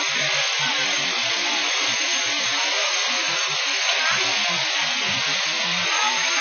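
Steady, loud rushing noise of fire apparatus at work, a fire engine running its pump to feed charged hoses, with an uneven low rumble underneath.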